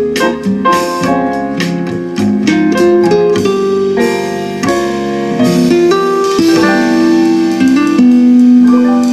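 Light guitar and piano instrumental music played back through a pair of Fostex FE108 Super 10 cm full-range speakers, their hardened surround edges freshly softened.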